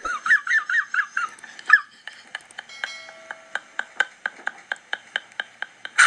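Thin, tinny soundtrack of a short video playing on a smartphone. It starts with squeaky, high-pitched voice-like chirps for about two seconds, then turns to a steady ticking beat of about three ticks a second.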